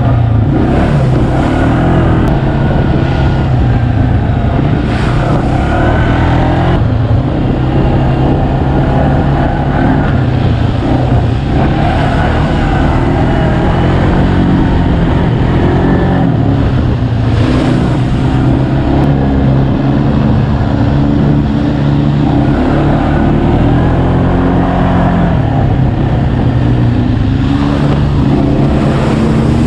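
ATV engine running under way on a dirt trail, its pitch rising and falling with the throttle, with rough rushing noise from the ride over it.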